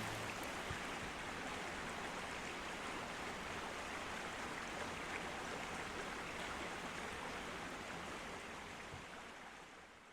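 Steady rush of running creek water, fading out near the end.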